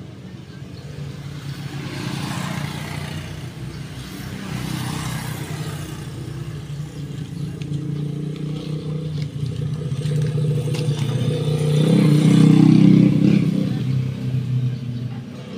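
A motor vehicle engine running, a steady low hum that grows louder to a peak about three-quarters of the way through and then fades.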